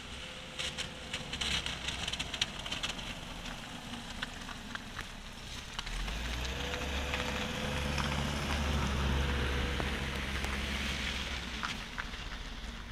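Interior sound of a MAZ-105 city bus: its diesel engine rumble swells about six seconds in, is loudest around nine seconds, then eases off, with a faint steady whine. Light crackling and ticking sounds come in the first few seconds.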